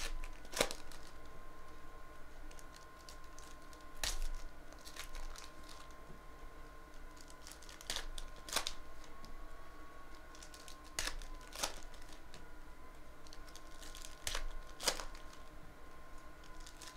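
Foil wrappers of 2017-18 Panini NBA Hoops trading-card packs being torn open and crinkled by hand, in short sharp crackles every few seconds, over a faint steady tone.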